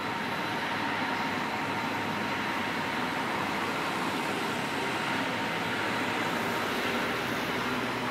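Steady urban traffic noise with faint steady tones running through it, and no distinct passing or impact sounds.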